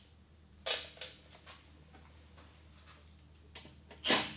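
A few scattered sharp clicks and light knocks of hands and tools on a lawn mower engine's metal blower housing: one about a second in, a couple just after, and more near the end.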